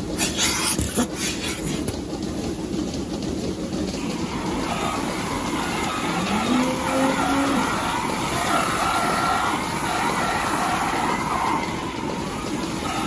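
Milking parlour equipment running with a steady mechanical noise while a milking cluster is handled and its teat cups are put on a cow's udder. Clicks and knocks come in the first two seconds, and a short low tone rises and holds about six and a half seconds in.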